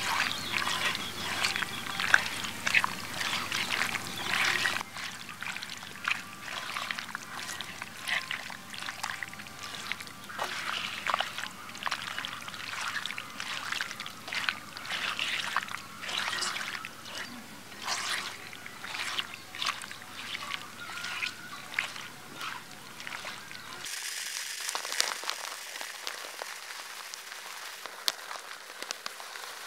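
Hands squelching raw prawns through a thick, wet masala marinade in a clay pot, with many short wet clicks and smacks. About 24 seconds in it changes to an even hiss of dry long-grain rice pouring onto a heap of grains.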